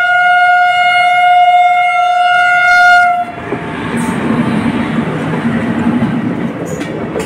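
Passenger train's horn holding one long steady blast that cuts off about three seconds in, followed by the rumble and clatter of the coaches rushing past close by.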